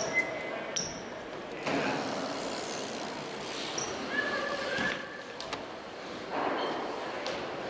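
BMX bike tyres rolling and rushing over wooden ramps, with several sharp knocks and a few short high squeaks from the tyres or bike.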